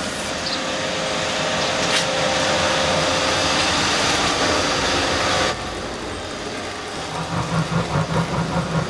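Horror-trailer sound design: a rumbling noise swell that grows louder and cuts off abruptly about five and a half seconds in, followed near the end by low pulsing beats, about three a second.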